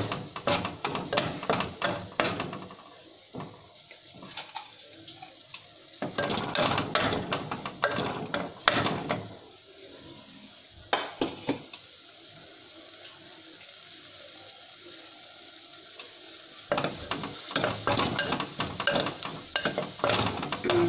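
A wooden spoon stirring and scraping in a terracotta clay pot while a tempering of cumin seeds, green chillies and coriander sizzles in hot fat. The stirring comes in several spells, and in the pause between about ten and sixteen seconds in only the steady sizzle is left.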